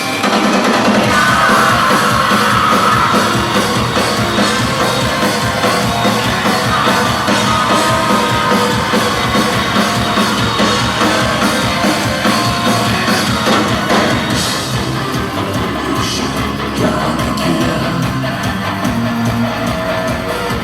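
Loud live industrial metal band playing, with full band backing and sung and shouted vocals.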